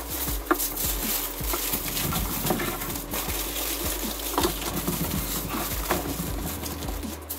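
Aluminium foil crinkling and rustling in irregular crackles as it is wrapped and pressed around a wire wreath frame.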